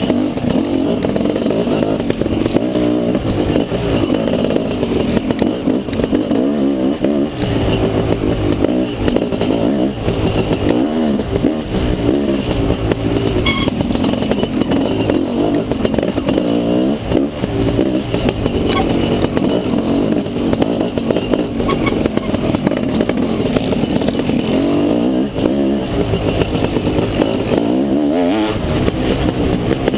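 Dirt bike engine revving up and down continually as it is ridden hard off-road, the pitch rising and falling with each throttle change. There is a single sharp knock about thirteen seconds in.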